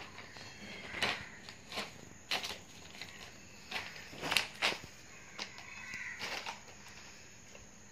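Thin plastic bag crinkling and rustling as two kittens paw at it and tussle on it, in short irregular bursts, the loudest a little past four seconds in.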